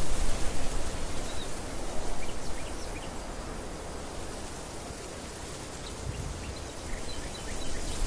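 Wind gusting across the microphone and through the field grass, a low buffeting rumble that is strongest at the start and again near the end and eases in between. Short, high chirps of small birds come now and then.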